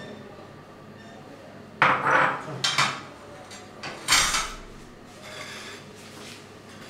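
Ceramic dishes and metal utensils clinking and knocking against each other. There are a few sharp clatters, the loudest about four seconds in.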